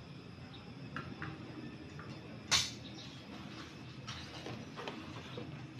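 A metal cooking pot set down on a portable gas stove, one short clatter about two and a half seconds in, with a few light knocks around it.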